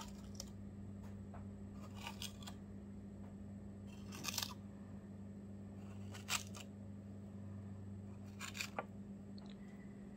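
Small glass leaf pieces being set down on a glass sheet: four short, faint clicks or scrapes about two seconds apart, over a steady low hum.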